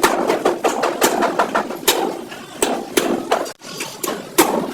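Irregular hammer strikes on sheet metal as a crash-damaged van body is beaten back into shape, with voices talking between the blows.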